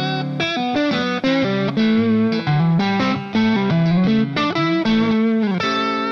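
Background electric guitar music: a quick run of single notes, then a chord struck about five and a half seconds in and held, its tones wavering.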